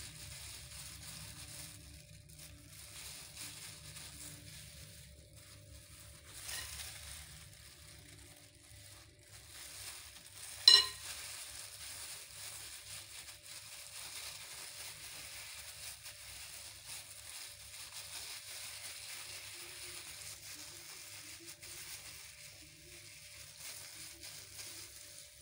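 Clear plastic food gloves crinkling and raw minced meat squishing as meatballs are rolled and pressed firmly by hand, over a low steady hum, with a single sharp knock about ten seconds in.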